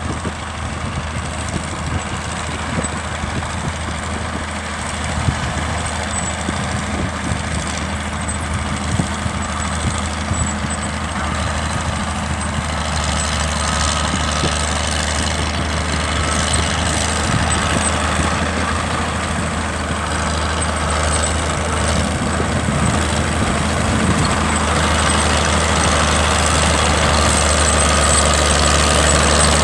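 Heavy diesel tractor engine running steadily with a deep, even hum, slowly growing louder as it comes closer.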